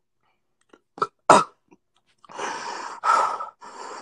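A person's short throat sounds twice about a second in, then a run of heavy, breathy exhalations close to the phone's microphone, each lasting about half a second.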